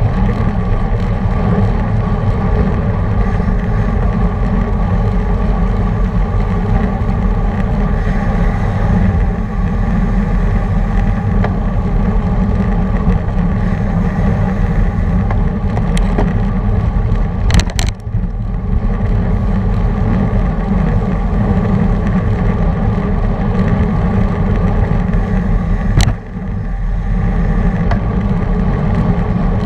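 Wind rushing over a bike-mounted action camera's microphone and the hum of road bike tyres on asphalt, riding at speed in a racing pack; a few sharp clicks break in about two-thirds of the way through and again near the end.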